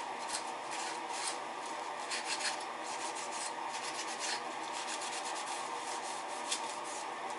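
Paper towel rubbed over a balsa-wood elevator frame, wiping excess thin CA glue off the joints: a steady scratchy rubbing made of many quick, short strokes.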